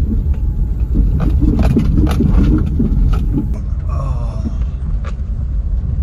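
Car driving over a rutted dirt track, heard from inside the cabin: a steady low rumble of tyres and engine, with a run of knocks and rattles from the bumps in the first half.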